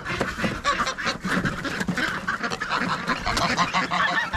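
Domestic ducks and geese quacking and honking together in a dense chorus of short overlapping calls.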